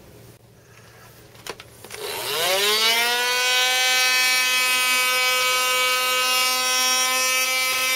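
Small handheld vacuum cleaner switched on about two seconds in, its motor whine rising quickly to a steady high pitch and running on as it sucks up drilling debris. Two sharp clicks come before it starts.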